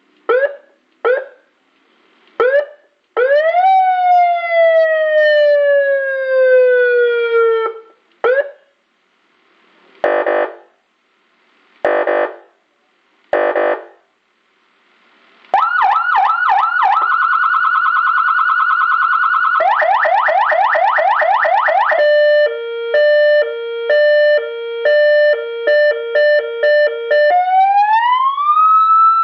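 TOA AS-928 200-watt electronic siren amplifier sounding through its speaker, cycling through its tones. It starts with short rising chirps, then a long falling tone and three short harsh horn blasts. After that come a fast warble, rapid up-and-down yelps, an alternating two-tone hi-lo switching about twice a second, and a rising wail near the end.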